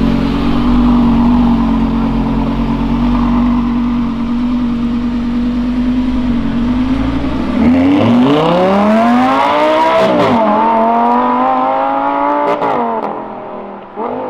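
Lamborghini Gallardo Spyder's V10 engine running at steady revs, then, about halfway through, accelerating hard away with its pitch rising. The revs drop suddenly twice at upshifts, and the car fades into the distance near the end.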